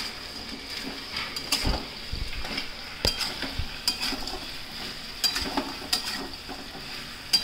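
Pieces of fried chicken being tossed into a sauce in a steel wok, sizzling steadily, while a metal spatula scrapes and knocks against the pan at irregular intervals.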